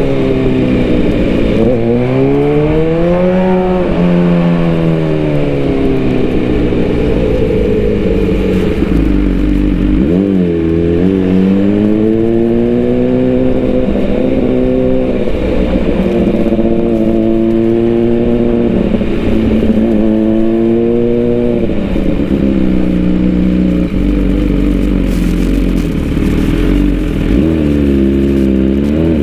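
MV Agusta F4 inline-four sport-bike engine, heard from the rider's seat while riding. Its pitch rises and falls again and again as the throttle is opened and eased off through slow traffic.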